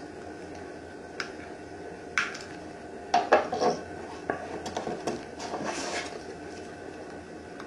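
Scattered light clicks and short scrapes of a small hand tool or blade working vinyl wrap against a hard helmet surface, clustered in the middle of the stretch, over a faint steady hum.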